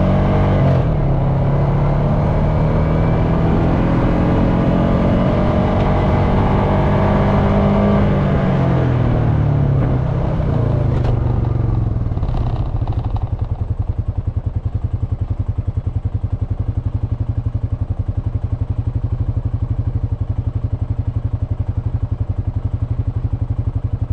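Honda FourTrax Foreman ATV's single-cylinder engine running steadily at riding speed, then falling in pitch as it slows about eight seconds in, and settling to an even, pulsing idle from about twelve seconds in.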